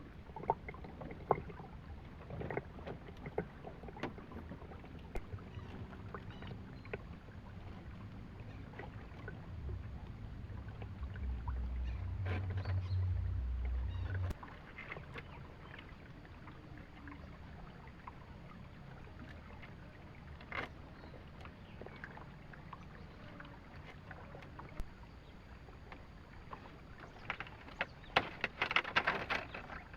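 Scattered knocks and clicks over a faint low rumble, with the rumble swelling for a few seconds midway and a quick flurry of clicks near the end.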